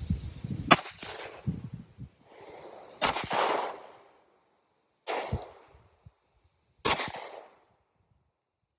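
Four single gunshots on a shooting range, roughly two seconds apart, each fading out over about half a second; the first is the loudest. A low rumble runs under the first two seconds.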